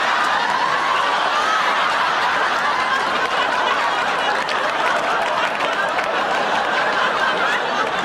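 Studio audience laughing steadily, many voices together.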